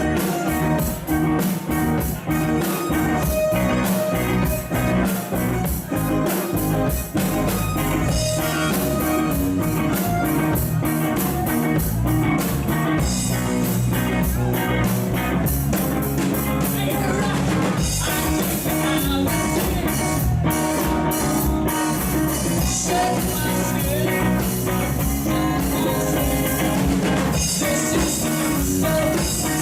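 Live rock band playing with electric guitar, bass and drum kit at a steady beat.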